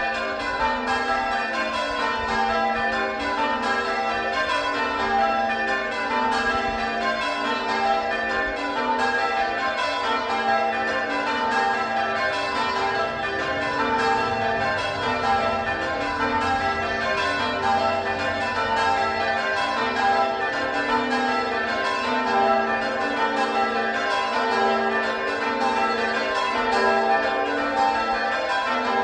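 Ring of six church bells, tenor of about 8 cwt in G, being change-rung: a continuous, rapid stream of strokes in an unbroken rhythm. Five of the bells were cast by Pennington in 1789 and the treble by John Taylor in 1921.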